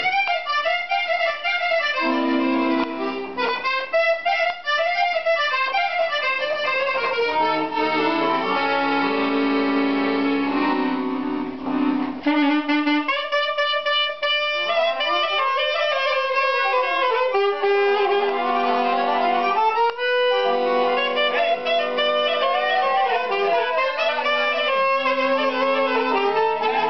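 Live band music: accordion and saxophone playing a fast, ornamented melody over accordion bass notes.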